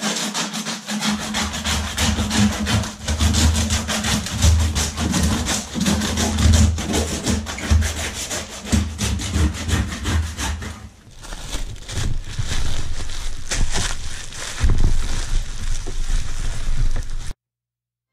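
Hand meat saw cutting through a moose's rib bones in quick, steady back-and-forth strokes; the sawing stops suddenly near the end.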